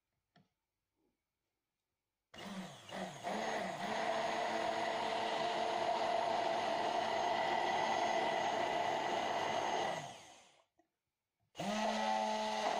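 Hand-held immersion blender motor running in a jug of oil, whole raw egg and mustard, emulsifying them into mayonnaise. It starts a couple of seconds in with a brief dip in pitch, runs steadily for about eight seconds, stops, then starts again near the end.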